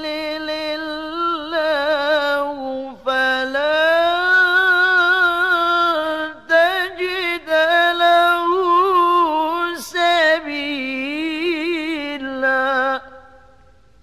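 A single voice recites the Quran in melodic tilawah style, holding long notes decorated with rapid trills and wavering ornaments. There are brief breaks for breath, and the last note fades out with an echo about a second before the end.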